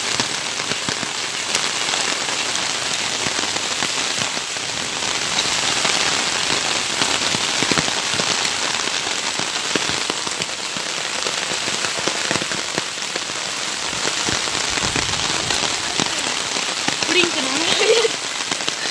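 Heavy hail and rain falling on paved ground: a dense, steady hiss full of small sharp ticks from hailstones striking.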